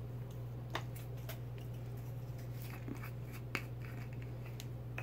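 Scattered light clicks and taps of a small glass jar of dry mica flakes being handled and its screw lid twisted off, over a steady low hum.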